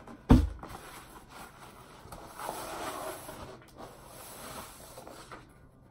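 A sharp thump about a third of a second in, then a piece of cardboard rustling and scraping as it is handled close to the microphone.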